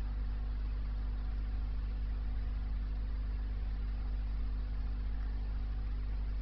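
Aquarium pump humming steadily: a low, even hum with a faint hiss over it.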